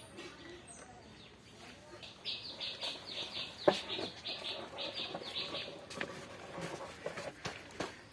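A bird chirping: a quick run of short high chirps, about four a second, starting about two seconds in and lasting several seconds. A few sharp knocks are mixed in, the loudest near the middle.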